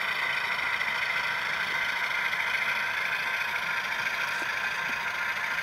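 Tsunami sound decoder in a model C630M diesel locomotive playing its diesel engine sound, running steadily with little bass through the model's small speaker.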